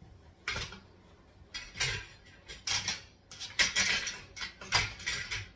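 Wire-mesh shelf of a four-tier Bloom greenhouse rattling and clinking against the metal frame poles as it is fitted in, in about five short bursts of metal clatter.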